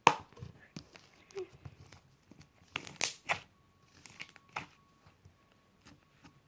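Homemade clear glue slime being squished and stretched by hand, giving irregular sticky clicks and crackly pops, the loudest ones near the start and about three seconds in.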